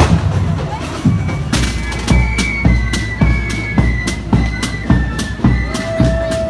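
Pipe band playing: bagpipes sound a melody of held high notes over a steady low drone, with drum beats about two a second, coming in strongly about one and a half seconds in.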